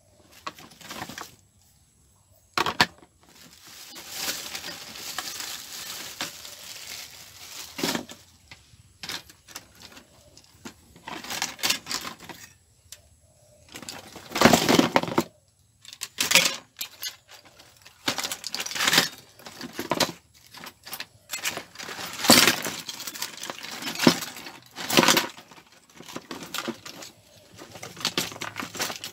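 Plastic bags rustling and metal hard-drive cases clattering as they are handled and stacked on a table, in irregular bursts with short pauses and a few sharp knocks.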